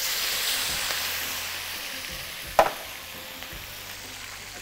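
Chicken pieces just lowered into hot oil in a frying pan, sizzling and spitting, the sizzle loud at first and slowly dying down; the spitting comes from a little water on the chicken. One sharp knock about two and a half seconds in.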